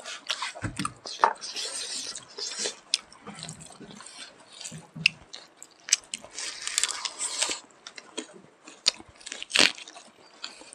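Two people chewing and smacking as they eat rice and smoked pork by hand, with wet mouth clicks and crunches.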